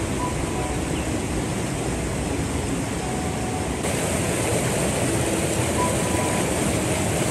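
Rocky mountain stream rushing over boulders and through small rapids: a steady, loud rush of water that turns brighter and hissier about four seconds in.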